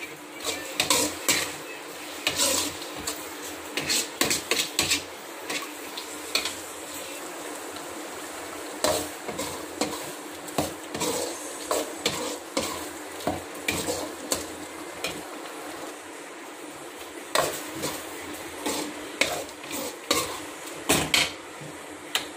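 Steel spoon scraping and clinking against the side of a metal kadai while stirring a thick prawn gravy, in irregular bursts of strokes with a short pause about two-thirds of the way through, over a steady hiss.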